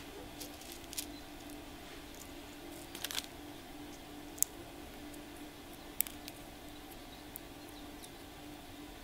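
Small sharp cracks and clicks, a few seconds apart, as green cardamom pods are split open between the fingers and their seeds drop into a stone mortar, over a faint steady hum.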